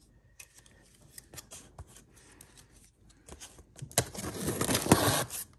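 A cardboard shipping box is handled with light taps and rustles, then its packing tape is slit open: a scratchy rasp of about a second, starting about four seconds in.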